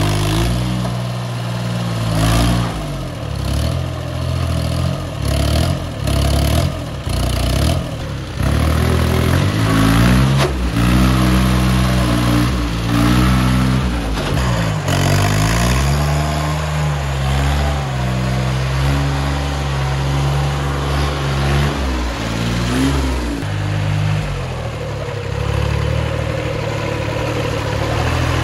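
Diesel engine of a VST Mitsubishi Shakti VT 224-1D 4WD mini tractor working hard while it pulls a trolley loaded with soil through soft dirt. The engine revs rise and fall repeatedly, hold steady for several seconds midway, then dip and pick up again near the end.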